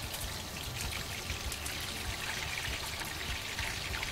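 Lamb tail fat sizzling steadily in a frying pan with fine crackles as it renders out its fat.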